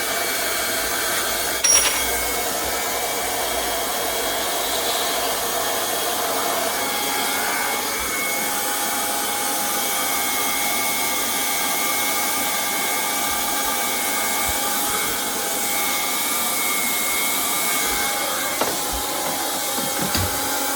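1500-watt hot-air plastic welding gun running, its fan blowing steadily with a steady whine. A single sharp click comes about two seconds in.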